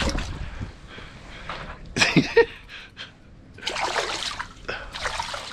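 A hooked bass splashing at the water's surface in short bursts, about two seconds in and again around four seconds in.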